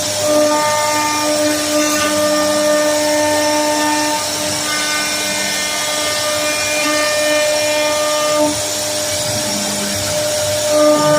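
CNC router spindle carving a wooden furniture panel: a steady whine of several pitched tones over cutting hiss. Some tones drop out and return as the cut goes on, and it grows louder near the end.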